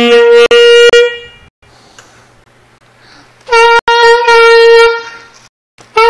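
Saxophone playing the same note three times as long held tones, with short pauses between. At the start of the first note a second note an octave lower sounds beneath it for a moment. It is a pair of B-flat saxophones, a long one and a small one an octave higher, being compared on one pitch.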